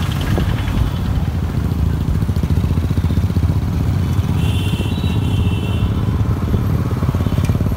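Motorcycle engines running steadily while riding along a road at moderate speed, a continuous low rumble with fast pulsing.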